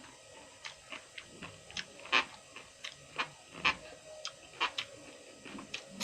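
A person chewing and eating close to the microphone: irregular wet mouth clicks and crunchy bites, a few each second, with two louder crunches about two seconds in and near the middle.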